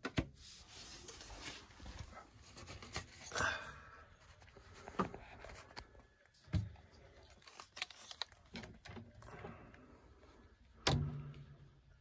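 Faint, irregular clicks, knocks and rustling from handling tools and equipment around an opened air-handler evaporator coil, with a louder knock near the end.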